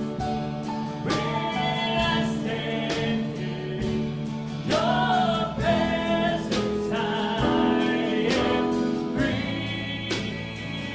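Live church worship band performing a song: several voices singing together over the band's instruments.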